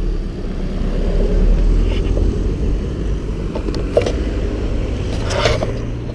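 Wind rumble on the microphone over the rolling of a Bench Wheel electric longboard's wheels on asphalt. Near the end the board brakes quickly to a stop under its twin motors' regenerative braking, with a short hiss about five and a half seconds in.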